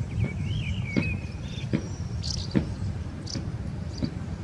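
Small birds chirping and twittering: a short warbling call in the first second and a half, then several brief high chirps. Under them runs a steady low rumble with a few dull thumps.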